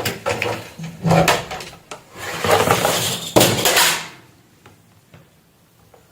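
Handling noise on a work surface: clicks and knocks, then about a second and a half of scraping and rustling, ending about four seconds in with only a few faint ticks after.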